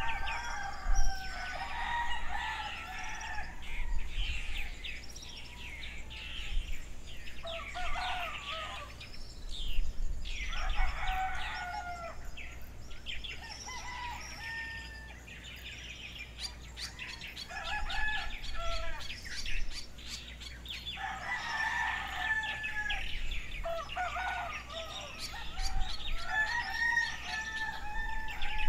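Roosters crowing again and again, one long call every few seconds, with smaller birds chirping between them in a morning outdoor field recording.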